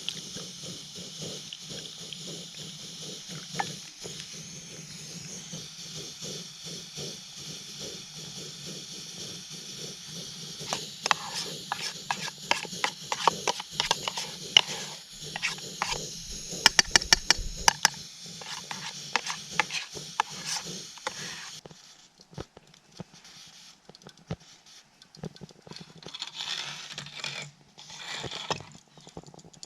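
A metal spoon scraping and clicking against a pot as chocolate pie filling is stirred, over the steady hiss of a camp stove burner. The hiss cuts off suddenly about 22 seconds in, leaving quieter scraping and rustling.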